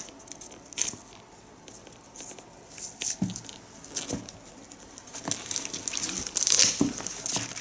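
Thin protective plastic film crinkling and rustling as it is pulled from a sneaker's metal buckle and the shoe is handled, with scattered small crackles and clicks that grow busier and louder near the end.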